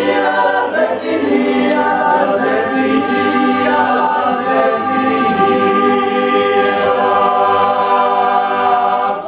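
Male choir singing a cappella in close harmony, closing the song on a long held chord that cuts off together near the end.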